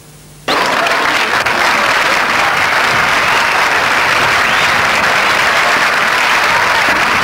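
Crowd applauding steadily, cutting in abruptly about half a second in.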